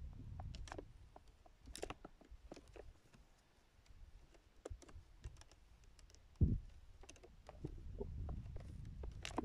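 Irregular small clicks and crackles of hands working close to the microphone, over a low wind rumble. One dull thump comes about six and a half seconds in.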